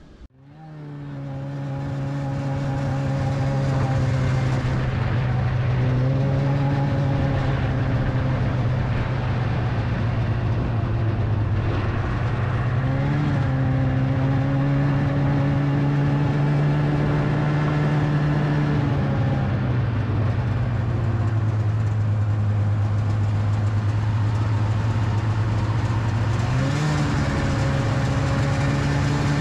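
Snowmobile engine running under way along a trail, fading in over the first few seconds. Its pitch steps up around the middle, drops back, and rises again near the end as the throttle changes.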